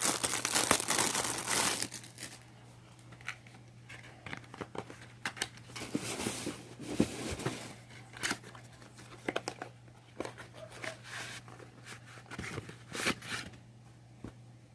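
Packaging being torn open and crinkled. The crinkling is loud and dense for the first two seconds, then gives way to quieter scattered rustles and small clicks as the bibs are handled.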